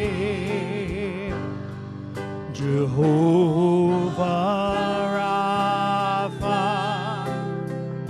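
Worship song in music: a singer holds long notes with vibrato over sustained instrumental backing, singing the word "Jehovah" about halfway through.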